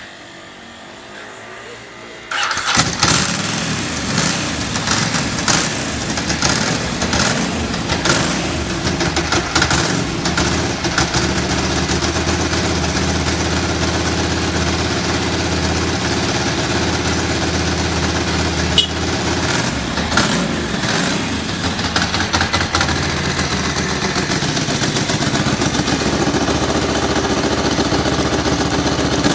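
2005 Ducati Multistrada 1000's air-cooled L-twin engine starting on the electric starter. It fires at the first press about two seconds in, then runs with a few early surges before settling into a stable idle.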